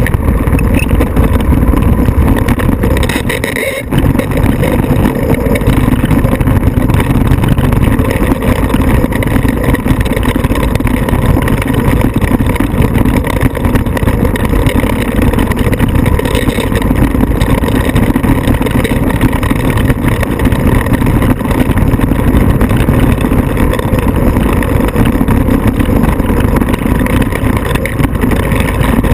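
Off-road vehicle engine running steadily and loudly, with a brief drop about four seconds in.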